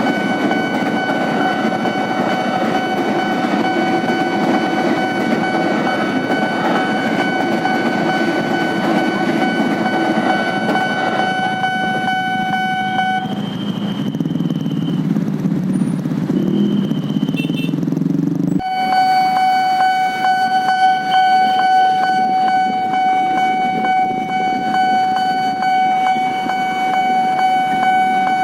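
Level crossing warning bell ringing steadily over the rumble of a passing electric commuter train. The bell drops out for several seconds past the middle, leaving only a low rumble, then rings again.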